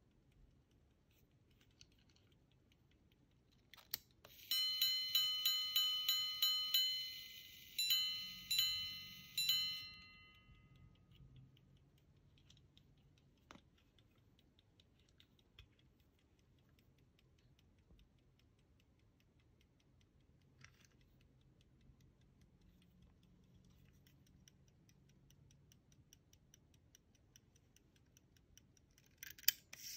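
Antique verge fusee repeating pocket watch striking the time: a click, then a quick run of about ten bright ringing strikes, a short pause and three more strikes, each fading out. Afterwards the movement ticks faintly, with a few handling clicks, and near the end a new run of strikes begins.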